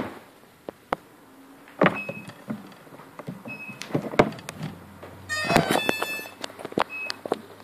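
Short high beeps repeating at intervals from an ImmersionRC EzUHF transmitter module, the periodic beeping that signals it is in binding mode, over handling clicks and knocks. About five seconds in comes a louder burst of clatter and tones, after which a low hum sets in.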